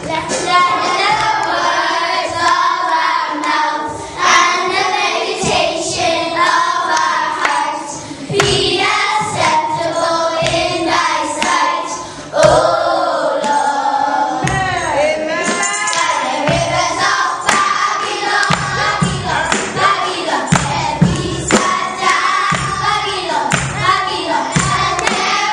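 A group of children singing a song together with musical accompaniment, punctuated by frequent sharp beats. The singing dips briefly a few times, between lines.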